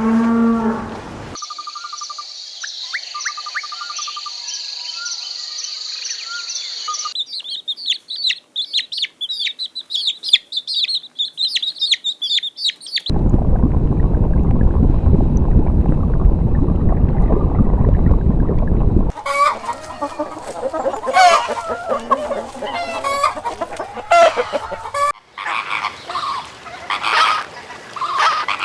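A run of short animal clips, one after another: high chirping calls, then about six seconds of loud rushing noise that cuts off suddenly, then chickens clucking and a rooster crowing over one another.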